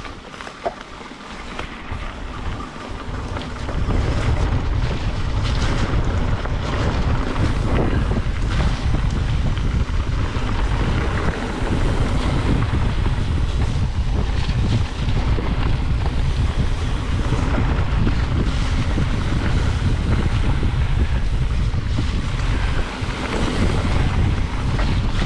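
Heavy wind buffeting the microphone of a camera on a moving mountain bike, much louder from about four seconds in, mixed with tyre noise on gravel and wet dirt trail and scattered knocks from bumps.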